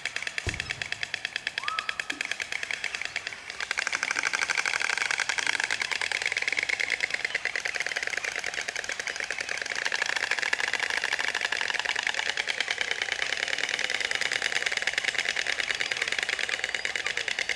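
Many white storks clattering their bills at once: a dense, rapid rattle of clicks that grows louder about three and a half seconds in and then keeps on.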